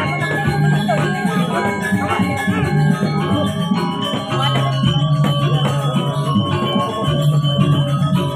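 Balinese gamelan playing: many ringing metallic tones over a low steady tone.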